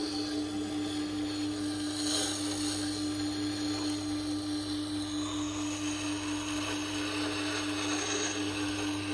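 Tormek T-8 wet sharpening machine running with a steady hum while a carving axe's edge is ground on its wet stone, giving a hiss of steel on stone that swells a little at times.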